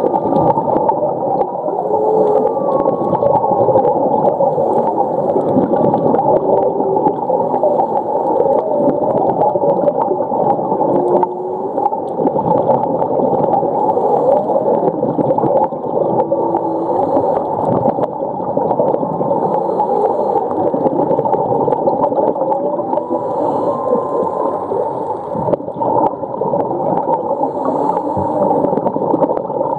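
Humpback whales heard underwater, a string of short whining calls that slide up and down in pitch, over a steady dense underwater rush.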